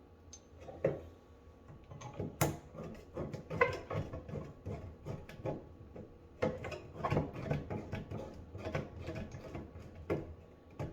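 Washing machine water hose being screwed back onto the supply valve by hand: irregular clicks, scrapes and light knocks of the hose coupling on the valve, with a sharper knock a couple of seconds in.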